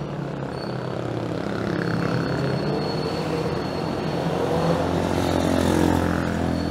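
Street traffic: a motor vehicle's engine drones as it passes close by, growing louder to a peak about five to six seconds in, then easing off.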